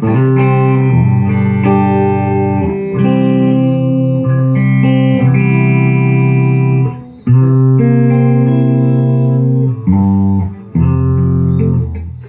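Electric guitar played through a late-1970s Ampeg V4 tube amp head, freshly refurbished and working again: a run of sustained, ringing chords with short breaks about seven and ten seconds in, stopping near the end.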